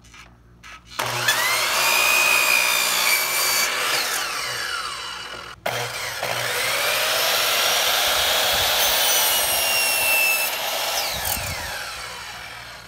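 Craftsman sliding miter saw making two cuts through wooden boards. Each time the motor whine rises as it spins up, holds steady through the cut, then falls away as the blade winds down.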